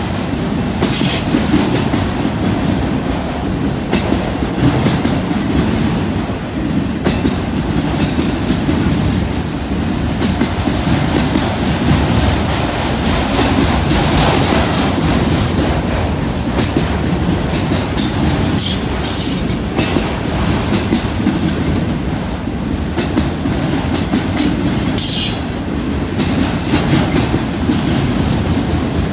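Freight train of autorack cars rolling slowly past: a steady rumble of steel wheels on the rails, with clicks from the wheels. A few brief high wheel squeals come about a second in, again around eighteen seconds and near twenty-five seconds.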